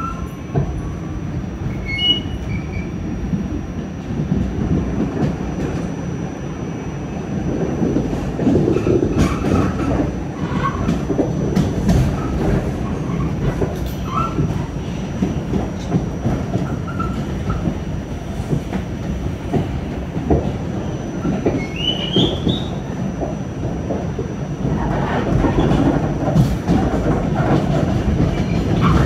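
NYC Subway R32 train running along the track, heard from inside the car: a steady rumble of wheels on rail with scattered clicks over the rail joints and a brief rising wheel squeal a little past two-thirds of the way through, growing louder near the end.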